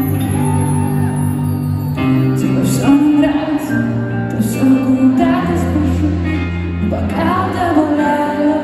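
Live pop music played over an arena sound system and recorded from the stands. Steady bass notes change every second or two, and singing comes in over them about two seconds in.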